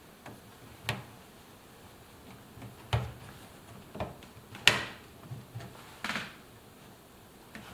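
Scattered knocks and clicks of hands working a rubber door seal and its retaining clamp ring onto a washing machine's front panel, about five short impacts with the loudest near the middle.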